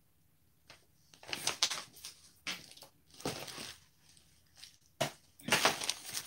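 Paper packaging crinkling and rustling as it is handled, in several short irregular bursts.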